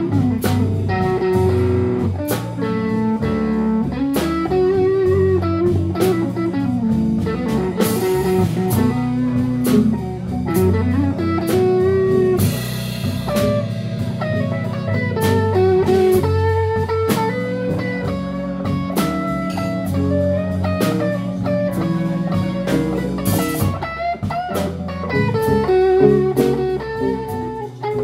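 Live blues band playing a slow blues. A Stratocaster-style electric guitar plays lead lines full of bent notes over electric bass and a drum kit, with a few cymbal crashes.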